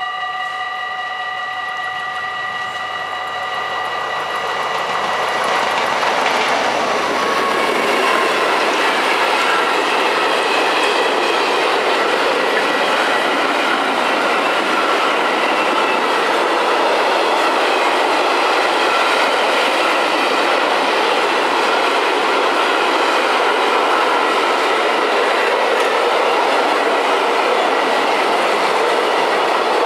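The level-crossing bells ring steadily for the first several seconds while a DB freight train of car-transporter wagons approaches. The train then passes close by as a loud, steady rumble of wheels on rails with a clickety-clack over the rail joints, and this covers the bells.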